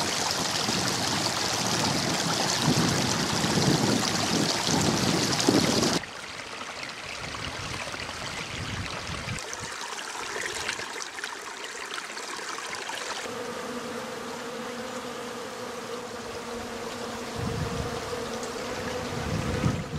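Running water of a shallow stream, louder for the first several seconds. About two-thirds of the way through, a bee's steady buzzing hum joins it.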